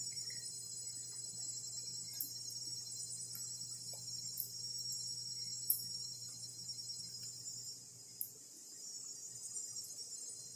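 Steady chorus of insects: a shrill high drone made of several unchanging tones, over a faint low hum.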